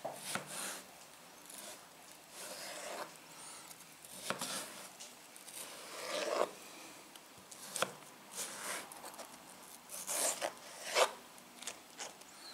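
A chef's knife slicing lengthwise through cucumber on a plastic cutting board: irregular short rasping strokes of the blade, with a few sharp clicks of the knife against the board.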